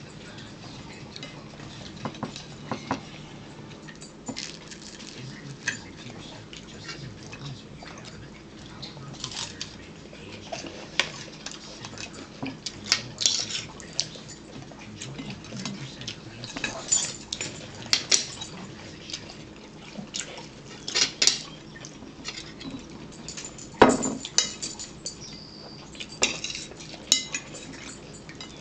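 Fork and knife scraping and clinking on a plate while cutting pizza: irregular short clicks and scrapes, with one louder knock late on.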